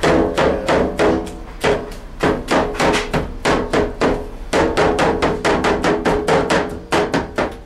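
Cleavers chopping barbecued meat on a wooden cutting board: a fast, uneven run of knocks, about five a second.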